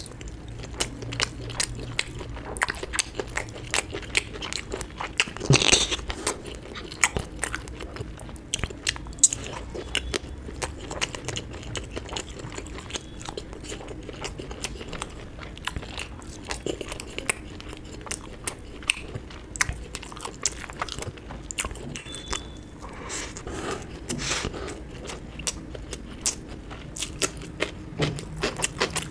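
A person eating close to the microphone: steady chewing and biting with many small wet clicks and crunches, and a louder bite about six seconds in.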